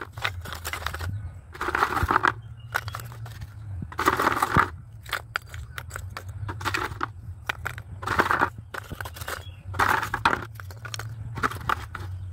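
Lumps of wood charcoal clattering and knocking together as they are dropped by hand into a clay charcoal stove, in short bursts about every two seconds with sharp clicks between.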